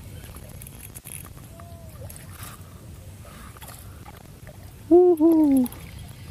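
A man's voice, loud and close, gives two short hooting exclamations in quick succession about five seconds in, each falling in pitch. A fainter falling note comes a few seconds earlier, over a low steady background rumble.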